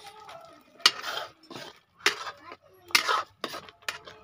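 Metal spoon clanking and scraping against a steel kadai while thick bhaji is stirred, about five sharp clanks with a brief ring, the loudest about a second in and again near three seconds.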